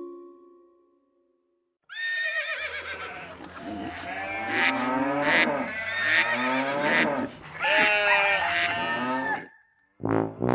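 A crowd of farm animals calling all at once: cows mooing, sheep and goats bleating and chickens clucking over one another for about seven seconds, as a cartoon animal audience cheering. It starts after a short silence, follows the last fading chime of a mallet jingle, and gives way to the band's music right at the end.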